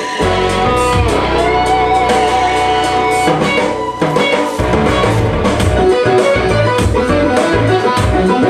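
Amplified electric guitar playing a lead melody, with held notes and string bends, over a rock backing of drums and bass.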